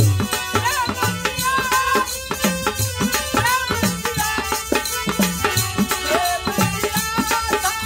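Devotional bhajan music: a harmonium playing the melody while a man sings, over steady hand-drum rhythm from a barrel drum with deep booming strokes and a small hand-held frame drum.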